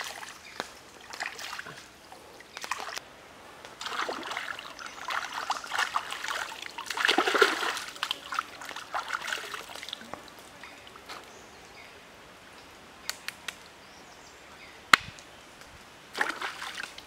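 Stream water splashing and sloshing as an octopus is rubbed and rinsed by hand in a shallow stream, in uneven spells that are loudest about halfway through. Then the softer flow of the stream with a few sharp clicks, and a brief splash again near the end.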